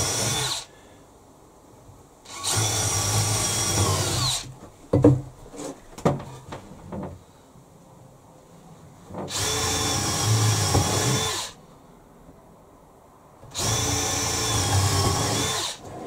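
Cordless drill-driver running in short spurts, driving screws through a timber rail into a wooden leg. One run ends just after the start, then three runs of about two seconds each follow, with a few knocks of wood between the first two.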